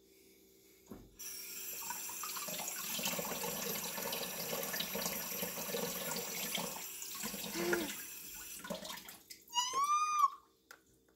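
Tap water running into a sink bowl as morel mushrooms are washed, starting about a second in and stopping after about eight seconds. Then a short high-pitched squeal that rises and falls.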